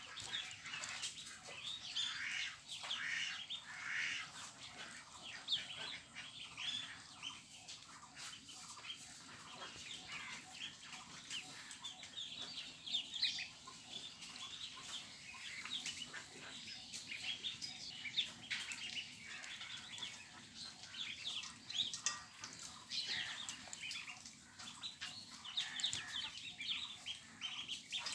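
A large flock of farmed poultry calling: many short, overlapping calls without a break.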